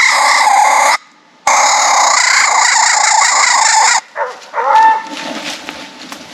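A harsh, steady animal-distress-style call from a game caller, sounded in two long blasts that start and stop abruptly with a brief gap, used to make a raccoon in a den tree look out. It is followed by shorter, uneven yelps or barks from the hound near the end.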